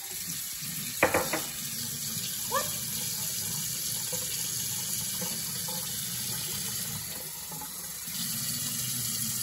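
Kitchen faucet running steadily, its water stream filling a glass jar and splashing into the steel sink. A sharp knock comes about a second in.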